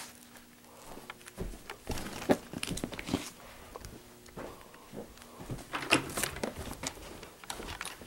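Close handling noise: toy figures and the camera being moved and rubbed together, with scattered soft knocks, clicks and rustling, busiest about two and six seconds in.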